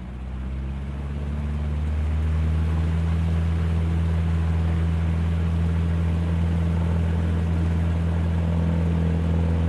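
The Continental O-200 four-cylinder engine of a 1971 Cessna 150L going to full power for the takeoff roll: a steady, low drone that grows louder over the first two seconds, then holds.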